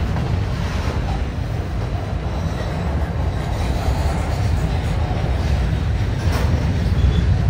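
Diesel locomotives of a freight train rumbling steadily as the train rolls by, with one sharp click a little over six seconds in.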